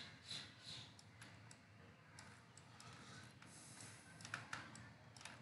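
Faint, irregular clicks of a computer mouse, several in quick succession near the start and a few more later on, over a low steady background hum.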